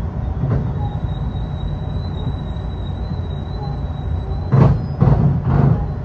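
Electric commuter train rolling slowly into a station, heard from the cab: a steady low rumble with a thin, steady high whine, then three short loud bursts of noise close together near the end as the train comes to a stop.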